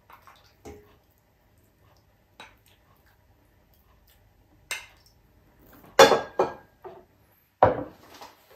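Dishes clattering as broth is served: a ladle scooping from a stainless steel pot and tipping into a glass bowl, with a few light clinks, then two louder knocks near the end as the ladle goes back into the pot and the bowl is set down on the table.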